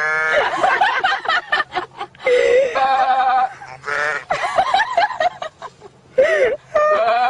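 Goats bleating, a string of loud, quavering calls one after another with short breaks between them.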